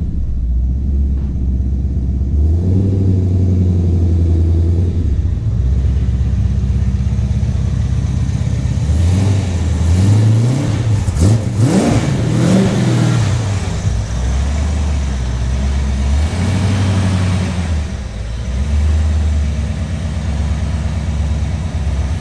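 A Corvette's V8 engine runs steadily. About halfway through, the revs climb and drop.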